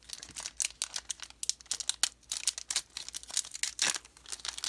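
Pokémon card booster pack packaging being torn open and crinkled by hand: a dense run of crackles and rips.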